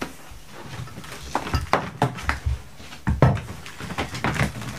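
Irregular clicks, knocks and light clatter of cables and gear being handled and moved around behind a guitar amp stack, with several sharper knocks scattered through.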